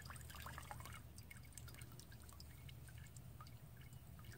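Faint drips of diesel and light clicks as a wet fuel filter element is drawn up out of its metal canister, most of them in the first second.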